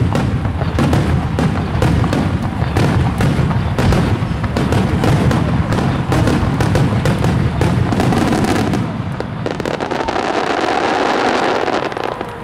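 Starmine fireworks barrage: shells fired and bursting in rapid succession, with many booms and cracks overlapping. About nine or ten seconds in it thins to a softer, steadier crackle as the glittering stars fade.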